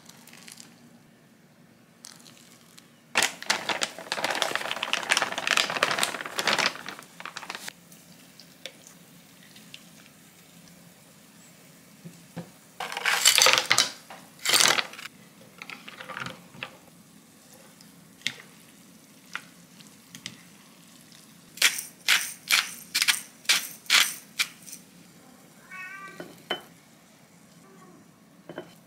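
A run of kitchen sounds: a few seconds of splashing water, ice cubes tumbling into a bowl, a quick series of sharp clicks, then a short cat meow near the end.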